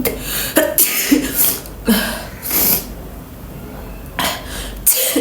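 A woman's forced sneezing and coughing: about seven short, breathy bursts in two clusters with a pause of about a second between, as she tries to provoke sneezes by tickling the inside of her nose.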